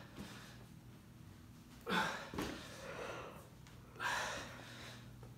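A man's heavy, forceful breaths from exertion while doing walking lunges holding dumbbells: two hard gasping exhales about two seconds apart, with a steady low hum underneath.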